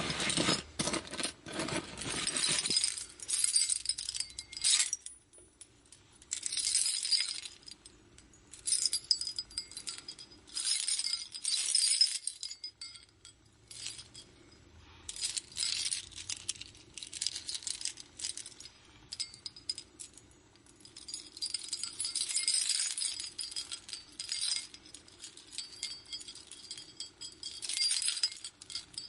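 Jewelry being jiggled, its metal pieces clinking and jingling together in repeated shakes of a second or two each, with short pauses between.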